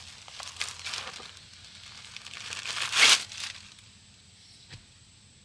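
Crinkling and rustling of a mattress pad being handled and fitted into place, loudest about three seconds in, then dying away, with one light tap near the end.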